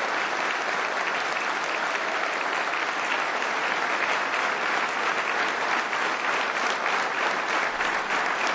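Audience applauding steadily, a roomful of hands clapping together.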